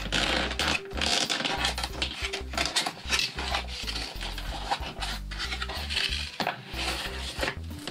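Hard plastic toy pieces rattling and clicking irregularly inside the boxed Peppa Pig Medic Case as it is handled, over light background music.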